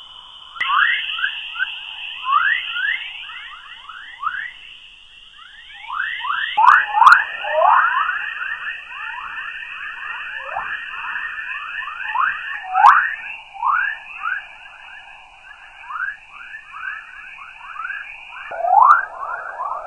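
Sonified space-plasma 'chorus' radio waves: a dense stream of short, overlapping whistling chirps that sweep in pitch, with a steady high whine running underneath.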